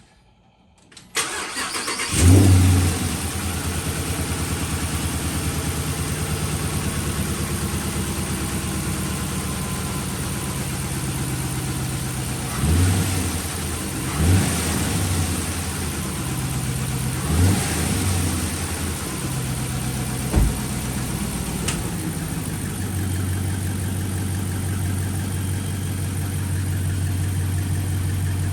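Dodge Charger's Hemi V8 cranked and started, flaring up as it catches, then settling into a steady idle. Several short throttle blips follow, with one sharp click among them.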